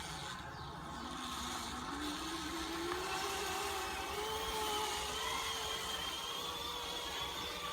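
Zipline trolley's pulley wheels running along the steel cable: a whir that rises in pitch over the first three seconds as the rider picks up speed, then holds nearly steady.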